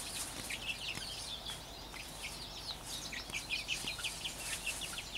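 Young backyard hens (pullets not yet laying) making soft chirps and clucks, many short high calls in quick succession.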